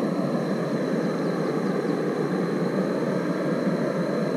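FIREMAPLE Polaris pressure-regulated canister stove's gas burner running under a pot, a steady rushing hiss as the flame heats half a litre of water toward a boil.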